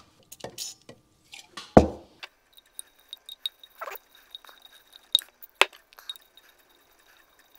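Screwdriver working a stubborn, oil-soaked screw in a small metal ALDA housing: scattered light metallic clicks and scrapes, a few sharper ones, after a single thump about two seconds in.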